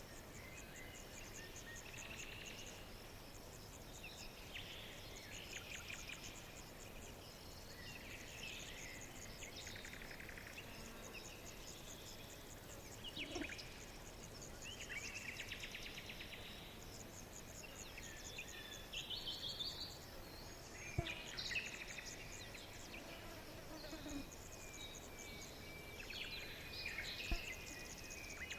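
Songbirds chirping and trilling in short bursts every second or two, over a steady, high chirring of insects.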